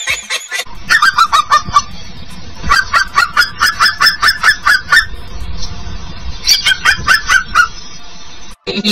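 Rapid honking calls, about eight a second, in three runs, the longest in the middle.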